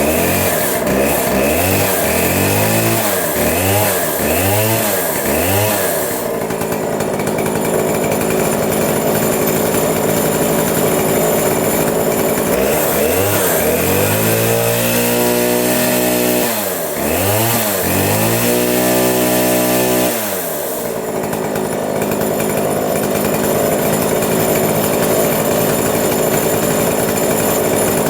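A 105 cc Stihl MS 070 clone two-stroke chainsaw running. It is revved up and down in about five quick blips over the first six seconds, settles to a steady run, is revved again for several seconds in the middle, then settles again. The carburettor is unadjusted out of the box, and the owner feels the engine could use more RPM at the top end.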